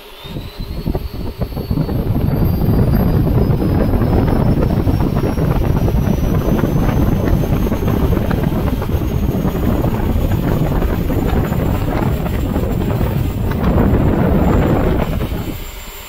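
XFly 64 mm 4S electric ducted fan spooling up over the first couple of seconds, then running at high throttle with a loud rushing blast and a thin whine that climbs slowly in pitch. It swells once more shortly before the end, then throttles down.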